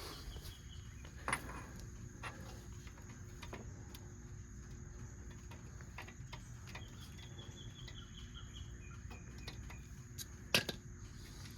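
Faint steady background hum with scattered light clicks of metal parts being handled, as the spindle retaining nut is turned to line up the cotter pin slot; one sharper click comes about a second in and a louder one near the end.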